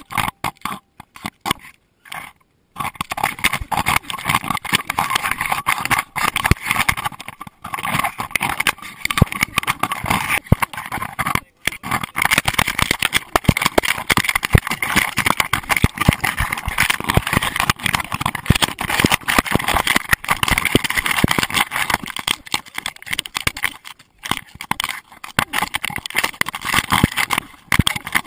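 A GoPro camera in its waterproof housing, strapped to a running Doberman, knocking, rattling and scraping against the dog as it moves, a dense stream of rapid knocks with a few short quiet gaps.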